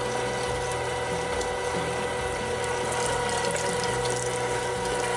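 LEM Big Bite electric meat grinder running under load with a steady hum, grinding pork butt through the coarse plate.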